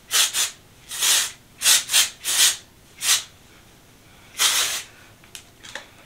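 A can of Oribe wave and shine spray being sprayed onto hair in short hissing bursts, about eight of them over the first five seconds, the one near the end the longest.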